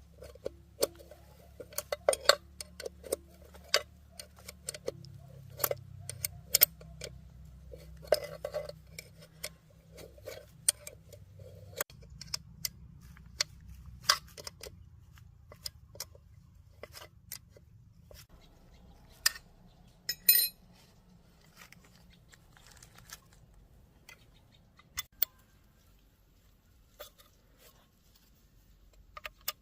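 Irregular sharp metallic clicks and clinks of hand tools and small metal engine parts being handled, a cluster of them about 20 seconds in, over a faint low hum.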